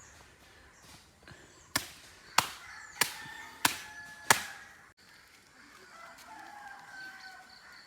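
Five sharp knocks in an even rhythm, about two-thirds of a second apart, starting a little under two seconds in.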